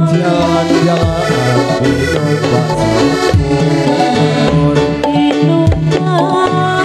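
Live Dolalak dance music played on electronic keyboard with drums: a keyboard melody over a steady pattern of drum hits.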